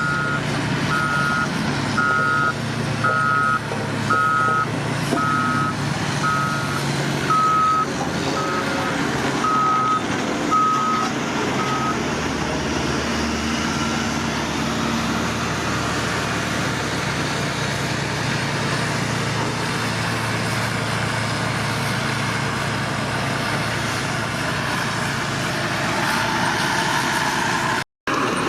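Reversing alarm on heavy construction machinery beeping about once a second, stopping about twelve seconds in, over a heavy engine running throughout.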